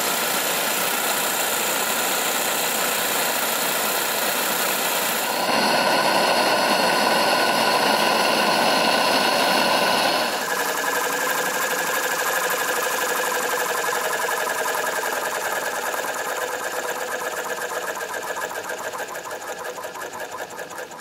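Small brass twin-cylinder high-speed model marine steam engine running fast on wet steam: a rapid, even mechanical clatter with a steady hiss of steam escaping from the untightened gland around the piston valve. The sound changes abruptly twice, at about five and ten seconds in, and then grows gradually quieter toward the end.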